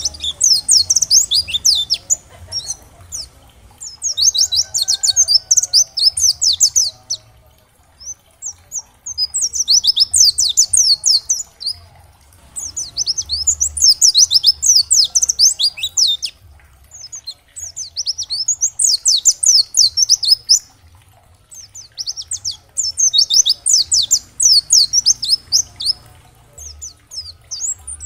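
Pleci (white-eye) singing its rapid, high twittering song in bursts of two to three seconds, about seven of them, with short pauses between.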